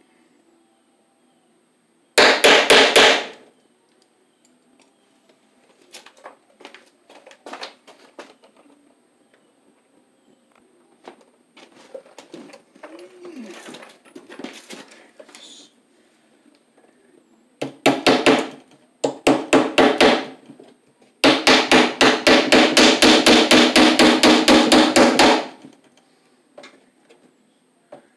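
Hammer driving electrical cable staples, in quick runs of rapid blows. A short run comes about two seconds in, two more come later, and the longest run near the end lasts about four seconds at roughly five blows a second. Fainter handling and scraping sounds fall between the runs.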